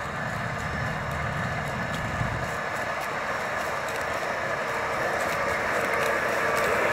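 Large Massey Ferguson tractor's diesel engine working under load while it pulls a stubble cultivator through the soil, a steady drone that grows gradually louder as the tractor approaches.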